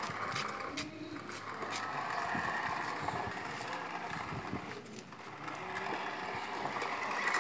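Toy remote-control car's small electric motor and plastic gears whirring steadily, with a few light clicks.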